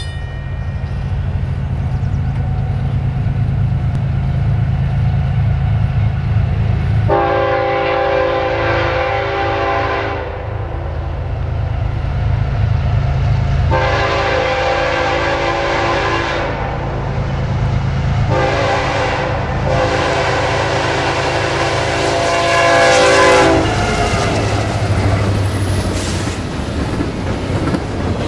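CSX freight diesel locomotive sounding its air horn as it approaches over the rumble of its engines: two long blasts, then a short one running into a long one, the grade-crossing signal. As the double-stack cars roll past near the end, the horn gives way to wheels clattering on the rails.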